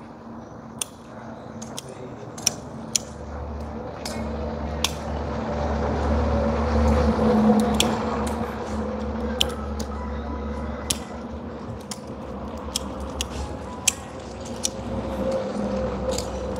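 Sharp, scattered clicks and snips of a hand tool working at a tree's root mass, over a steady low hum that swells in the middle.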